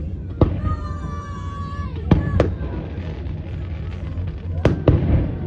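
Aerial fireworks shells bursting in the sky: five sharp booms, one about half a second in, a pair a little after two seconds and another pair near the end, over a steady low rumble.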